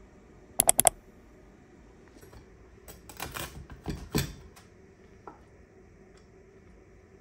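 A quick run of four sharp clicks, then a couple of seconds later cutlery clattering: a knife and spoon knocking on a plastic cutting board and dishes on a kitchen counter.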